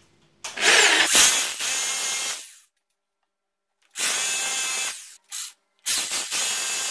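Electric hammer drill with a 6 mm bit boring into a plaster wall, run in three stretches of a second or two each with abrupt silent gaps between them.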